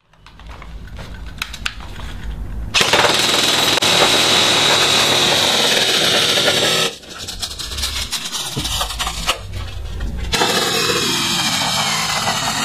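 G&G CM16 Carbine airsoft electric rifle firing continuously on full auto from a 9.6 V NiMH battery: a fast, unbroken mechanical rattle of the gearbox cycling. It grows louder about three seconds in, dips around seven seconds and is loud again from about ten seconds.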